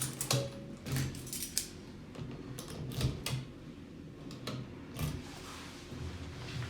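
A 2010 ThyssenKrupp elevator making irregular clicking and knocking sounds, a run of sharp clicks over low thumps, which the uploader calls strange sounds.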